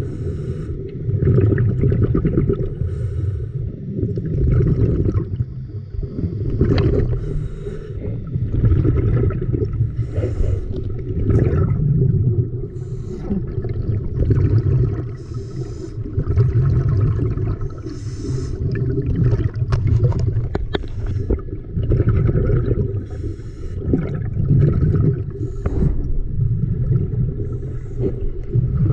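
Muffled water noise heard through an underwater action camera's housing as it moves through the water: a low rumble that swells and fades about every two seconds, with a few faint clicks.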